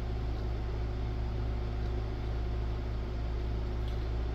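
Steady low hum with a faint hiss over it, unchanging throughout: the background drone of running equipment or a fan in the room.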